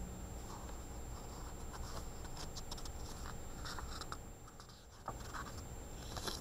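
Faint scratching and rustling of a picture book's paper pages being handled, with a page turned near the end.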